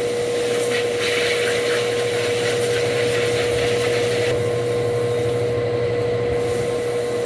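Machinery running steadily: a constant low hum with a single steady high whine held level over it.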